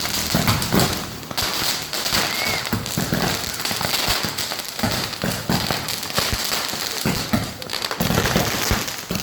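Many firecrackers going off at once, a dense, continuous crackle of rapid pops and bangs without a pause.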